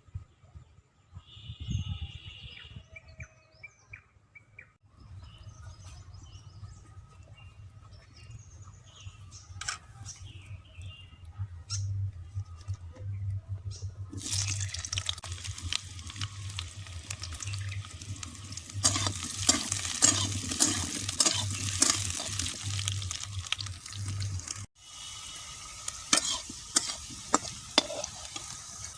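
Food frying in hot oil in a pan, sizzling, with a spatula clattering and scraping as it is stirred. Before the sizzle starts about halfway through there are only scattered clicks of handling.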